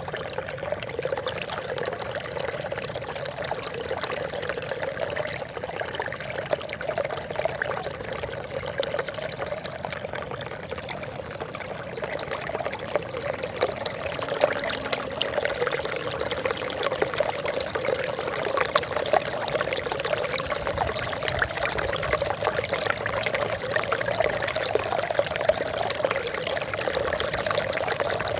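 Water trickling and splashing steadily, a continuous babble of many small splashes, a little louder in the second half.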